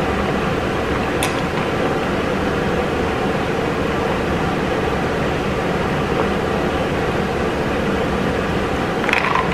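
Steady mechanical hum and hiss, with a single sharp click about a second in.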